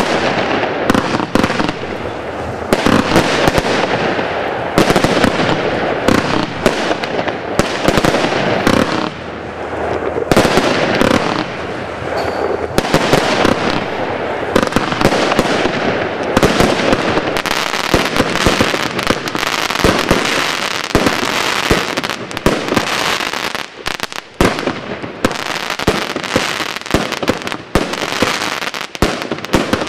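A GBV-Weco G-Force 1000 consumer fireworks cake firing a dense, near-continuous barrage. Shots launch in rapid succession and their stars burst overhead, thinning briefly about three quarters of the way through.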